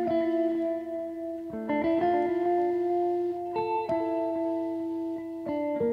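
Slow background music: single pitched notes that start sharply and ring on, the melody moving to a new note every second or two.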